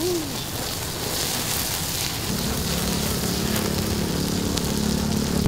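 Seafood sizzling on a hot griddle under the hiss of a gas blowtorch and open flames as it is flambéed. A steady low hum joins about two seconds in.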